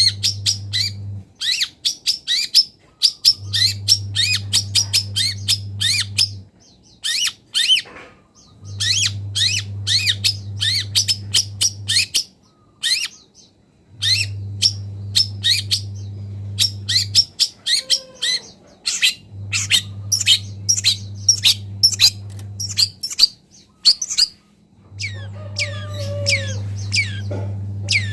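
Long-tailed shrike (cendet) in full song, rapid runs of high, chattering notes in bursts of a few seconds with short pauses between. A steady low hum comes and goes every few seconds underneath.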